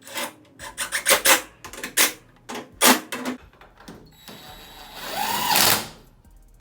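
Several sharp metallic knocks and clanks of tools on metal, then about a second past the halfway point a power tool whirs for about two seconds, speeding up and then winding down.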